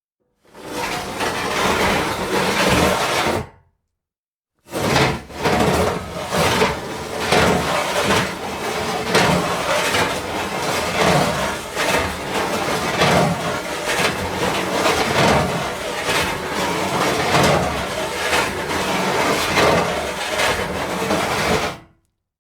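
Metal sheets sliding against each other, scraping and rattling: one short slide of about three seconds, then after a brief pause a long unbroken slide of about seventeen seconds.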